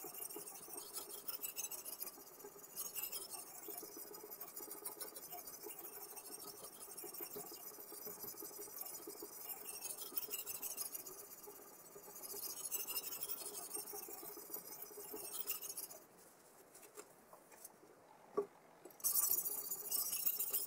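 Abrasive stone of a guided knife-sharpening system scraping back and forth along the edge of an M390 steel chef knife in repeated strokes. Near the end it goes quiet for a few seconds, broken by a single click, then the scraping starts again.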